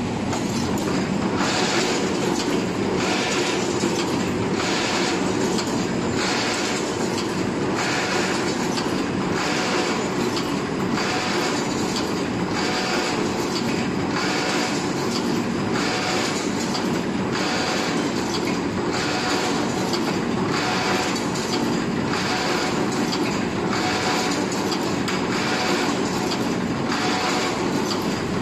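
Automatic steel wire clothes-hanger making machine running, with a rhythmic clatter a little more than once a second over a steady mechanical hum as it forms hangers from wire.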